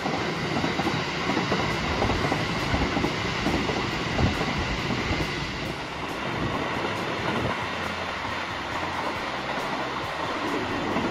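JR West electric commuter train running past along the tracks, a steady noise of wheels on rails.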